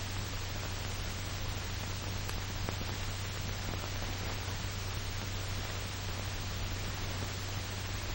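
Steady hiss with a low, constant hum underneath: the background noise of an old film soundtrack, with no speech or music.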